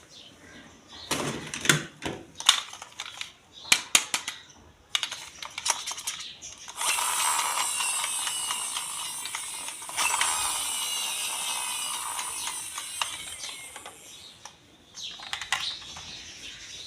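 Hard plastic toy parts being handled, with a run of sharp clicks and rattles. About seven seconds in, a continuous rapid ratcheting scrape runs for several seconds before fading to a few softer clicks.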